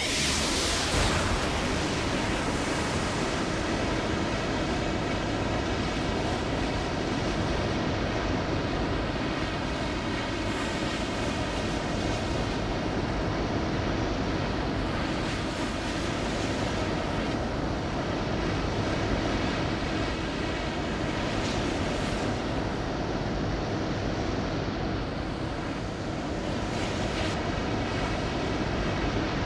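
A steady, loud rushing roar that starts abruptly and holds without let-up. Faint evenly spaced tones run through it, and a few brief brighter swells rise out of it.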